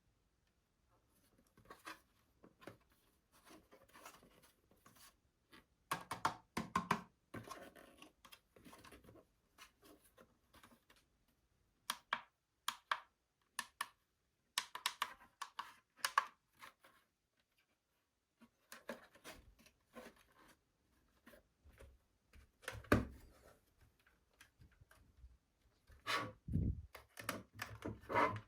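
Scattered clicks, knocks and rustling of small objects being handled, in irregular bunches with short pauses between.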